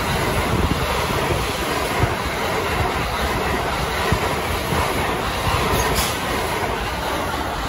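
A twelve-car Thunderbird limited-express electric train passing close by at speed: a steady loud rush of steel wheels on rails and running gear, with a couple of sharper clacks over rail joints.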